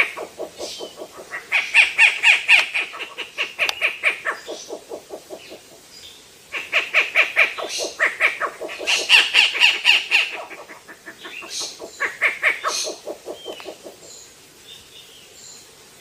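Rufous-legged owls calling in fast runs of stuttering, pitched notes. There are three bouts of a few seconds each, the last one short.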